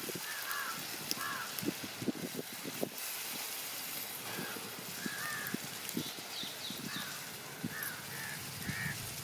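A spatula scraping and knocking against the cooking pot at irregular intervals as crab fry is stirred. Birds call repeatedly in the background, in short clusters.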